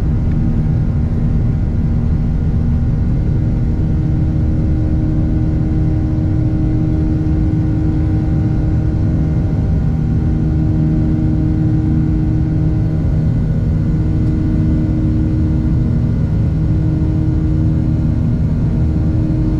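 Jet airliner engines heard inside the cabin during the climb after takeoff: a loud, steady rumble with a steady low hum whose tone slowly swells and fades.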